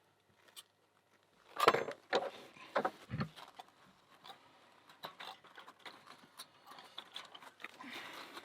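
Clicks and knocks of an American 1100 padlock and its metal parts being handled. A loud knock comes about two seconds in, with several more in the next second and a half, then lighter scattered clicks and soft rustling.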